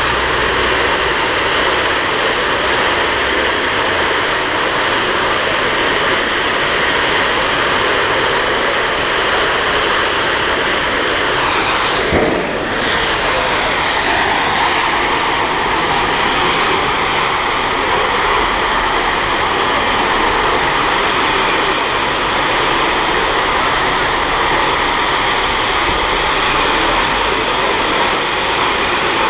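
A large burning gas leak: a jet of burning gas making a loud, steady rushing noise, like a jet engine, with one brief thump about twelve seconds in.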